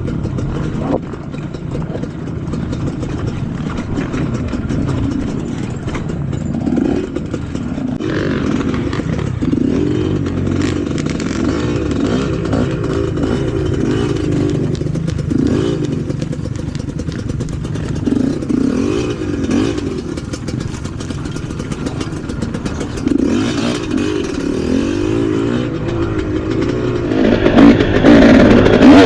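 Off-road trail motorcycle engine running and revving up and down as it is ridden over rough ground. The revs get louder and choppier near the end.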